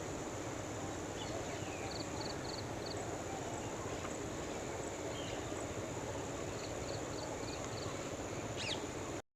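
Outdoor ambience: a steady high insect drone, with small birds giving short runs of quick chirps twice and a sweeping call near the end. The sound cuts off suddenly just before the end.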